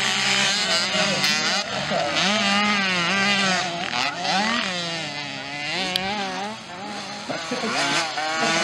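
Engines of several small youth motocross bikes, 65cc and mini-moto class, revving up and down as they race. Their high-pitched buzz rises and falls over and over with the throttle.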